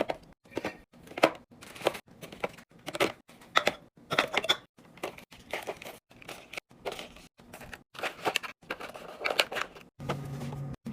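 Plastic packaging crinkling and tearing, with irregular knocks and clicks of items being handled and set down while restocking a fridge. A low steady hum comes in near the end.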